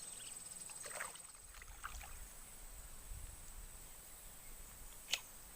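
Quiet outdoor background: a steady faint high whine and a few small ticks, with a low rumble through the middle and one sharp click near the end.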